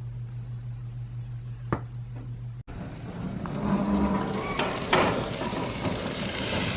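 A low steady hum with a single click. Then, after a sudden cut, steak and chicken sizzle on a grill outdoors, with a steady hiss and a few sharp clicks.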